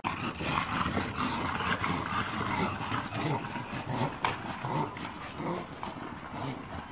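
English bulldogs making dog sounds while a skateboard rolls over brick paving, with many irregular clicks.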